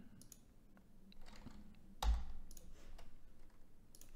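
Scattered faint computer mouse clicks and keyboard taps, with a louder soft thump about two seconds in.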